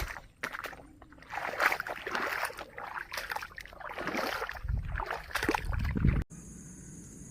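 Floodwater sloshing and rushing, rising and falling unevenly, with a few low thumps. About six seconds in it cuts off abruptly to quieter background with a steady high-pitched drone.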